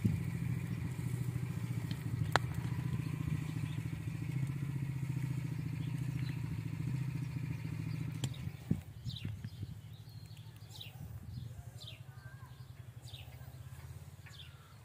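Steady low engine hum with a fast even pulse, which drops away about eight and a half seconds in; after it come a few light clinks and birds chirping.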